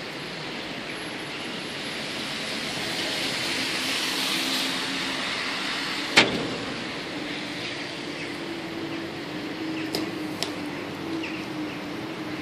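Street traffic on a slushy road: a car's tyre hiss swells and fades in the middle, then a low engine hum carries on. A sharp click about six seconds in is the loudest sound, with two smaller clicks near the end.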